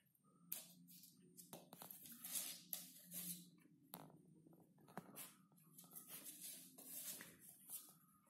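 A miniature pinscher pawing and nosing at a fleece blanket on a wooden floor: soft, irregular rustling and scratching of fabric and claws, in short bursts. A faint steady hum runs underneath.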